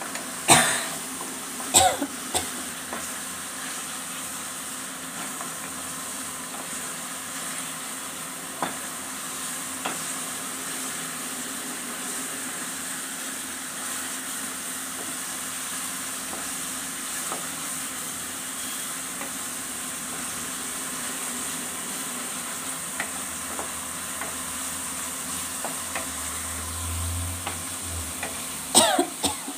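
A spice paste of onion, ginger, tomato and ground cumin and coriander sizzling in hot oil in a kadai while a spatula keeps stirring and scraping through it: the masala being fried down until the oil separates. A few louder knocks come near the start and again at the end.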